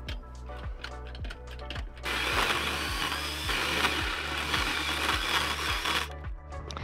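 A handheld power tool runs steadily for about four seconds, starting about two seconds in and stopping near the end. Background music with a steady beat plays throughout.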